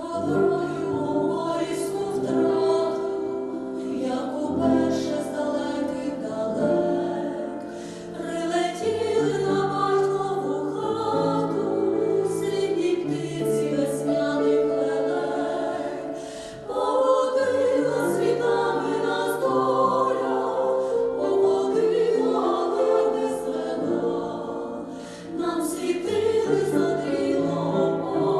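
Vocal ensemble singing a Ukrainian song in several-part harmony over an accompaniment, with long held notes.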